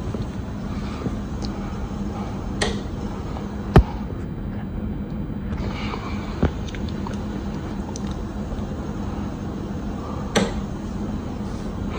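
Kichler Statmoor 52-inch hugger ceiling fan running steadily with a low hum and air noise. A few sharp clicks break in, the loudest about four seconds in.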